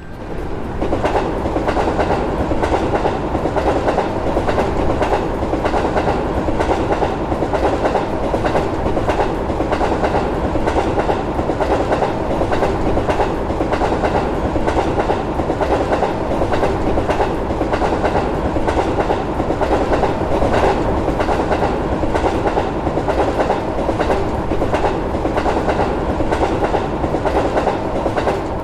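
A train passing the crossing, its wheels clattering over the rail joints in a fast, steady rhythm for the whole pass. The sound rises quickly at the start and stops abruptly at the end.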